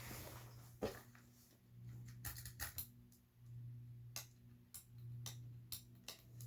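Ceiling fan motor running with a low hum that swells and fades about every second and a half, with scattered sharp clicks.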